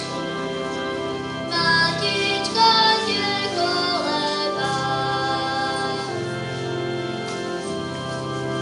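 Children singing a song together over instrumental accompaniment.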